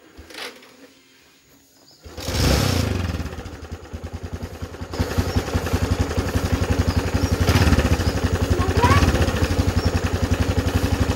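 Motorcycle engine starting about two seconds in, then running at a steady idle.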